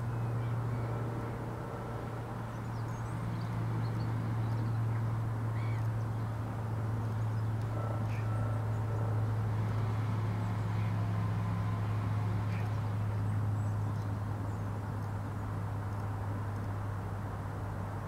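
A steady low hum throughout, with faint, scattered bird calls over it.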